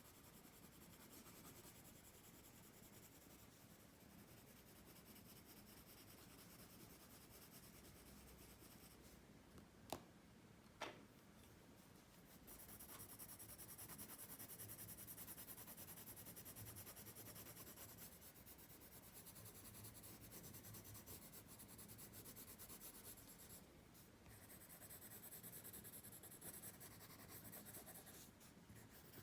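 Pencil scratching and rubbing on paper as lips are drawn, faint and continuous, getting a little louder partway through. Two short sharp clicks about ten seconds in.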